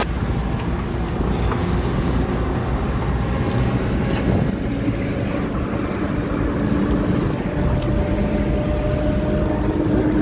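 Car driving: steady engine and road noise.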